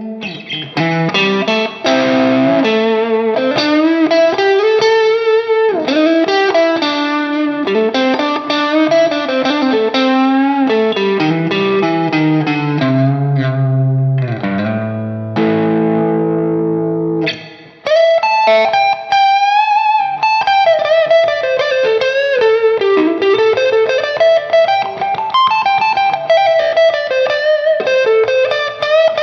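PRS Silver Sky electric guitar through a Marshall Silver Jubilee amp with overdrive. It plays chordal riffs and a held chord, then, a little past halfway, a single-note lead line with string bends.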